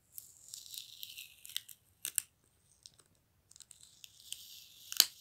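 Clear adhesive tape being peeled off the seam of a large plastic surprise egg: a crackling rip that comes in two stretches, with a few sharp clicks as the tape lets go.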